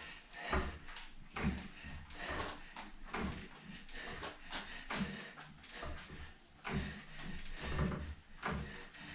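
Resistance pull cords knocking and creaking in rhythm with alternating front-crawl arm strokes, about one knock a second.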